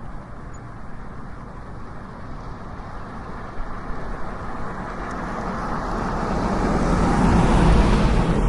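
Downtown street traffic ambience with a steady low rumble. A vehicle passes close by, growing louder from about halfway through to its loudest near the end.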